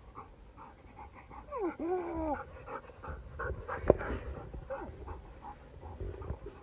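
A Dutch Shepherd panting quickly and evenly, about four breaths a second, with a brief wavering whine about two seconds in. A single sharp knock is heard near the middle.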